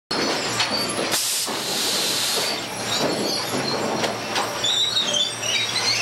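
Sawmill lumber stacker and its machinery running: a continuous mechanical clatter of knocks and banging boards over a low steady hum, with metal squeals about four seconds in. A burst of hiss comes a little over a second in.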